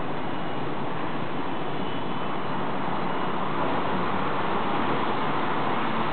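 Steady city traffic noise, an even wash of sound without distinct events, swelling slightly about halfway through.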